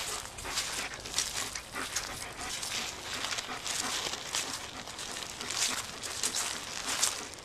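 Irregular rustling and scuffing on dry grass and fallen leaves, made by a person and a black German Shepherd on a leash walking and moving about together.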